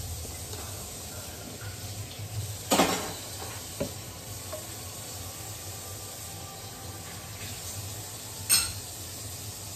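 A glass mug and a bottle being handled and tipped together: two sharp clinks of glass, about three seconds in and again near the end, and a lighter tap between, over a steady low hum.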